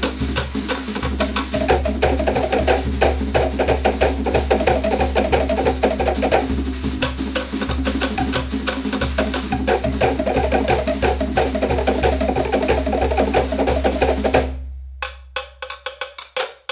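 Cook Islands drum ensemble playing a fast, dense rhythm of wooden slit-drum strokes over a steady deep bass drum. Near the end the bass drops out and the playing thins to a few scattered strokes as the beat ends.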